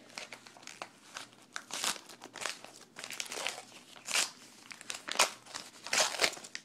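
Foil trading-card pack wrapper crinkling and rustling in irregular bursts as it is opened by hand.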